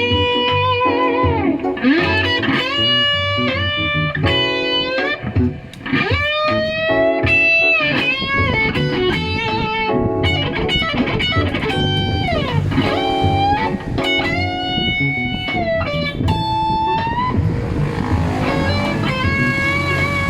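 Telecaster-style electric guitar playing a melodic lead line of sustained single notes with string bends and slides over a lower accompaniment.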